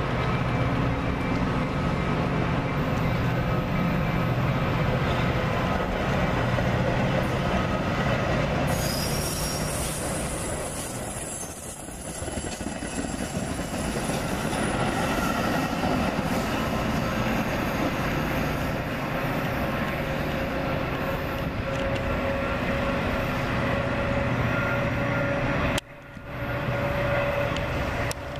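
Metra bilevel commuter coaches rolling past close by, steel wheels rumbling on the rails with thin, high wheel squeal drifting in and out. Near the end the sound drops sharply for a moment, then comes back.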